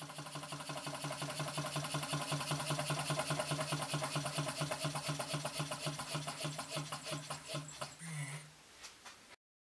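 Gütte GT03 Stirling engine running, a 90° V-type hot-air engine driving a small generator by belt, with a steady rhythmic clatter of about eight beats a second over a steady hum. The sound drops away near the end and cuts off abruptly.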